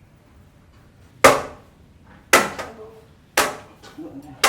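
Hammer blows, four sharp strikes in an even rhythm about a second apart.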